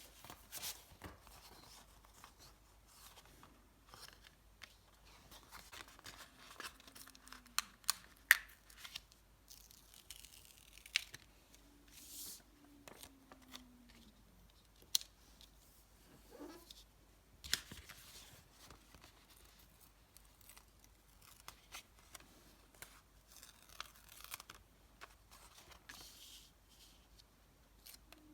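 Stickers and paper handled close to the microphone: stickers peeled from their backing and pressed down, with paper rustling and crinkling and scattered sharp taps and clicks.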